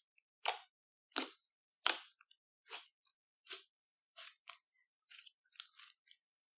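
Slime being squeezed and worked by hand: a regular series of short, sharp sticky sounds about every 0.7 s, growing fainter toward the end.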